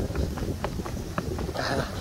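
A hiker's footsteps on a mountain trail: a quick run of short taps, several a second, over a low rumble.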